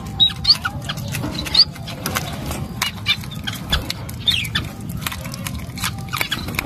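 Young otter eating fish greedily, with wet crunching and many sharp clicks of chewing, and short high squeaky chirps several times between bites.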